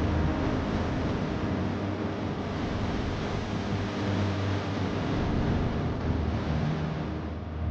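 Steady rushing noise with low sustained tones beneath it.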